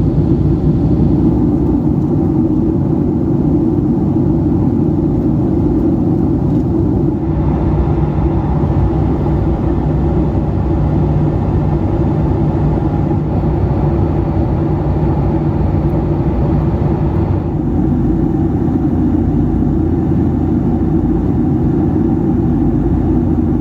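Steady low rumble of cabin noise in a Boeing 757-300 in flight: engine and airflow noise heard from a passenger seat. The higher part of the noise lifts slightly about seven seconds in and eases back at about seventeen seconds.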